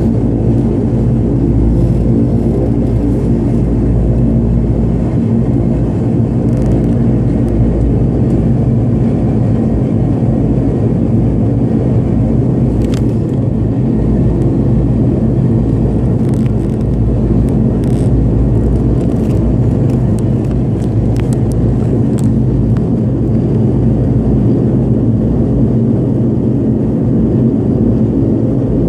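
The twin turboprop engines and propellers of an ATR-72 heard from inside the passenger cabin, running steadily with a hum of several held tones over a low rumble.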